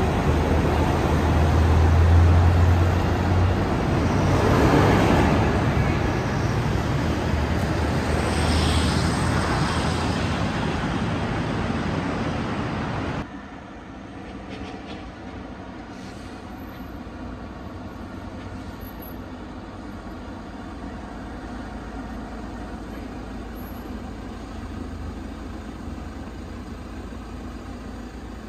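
A heavy road vehicle running close by: engine noise with a deep hum, loudest in the first few seconds. About thirteen seconds in, the sound cuts off abruptly and gives way to quieter, distant traffic noise.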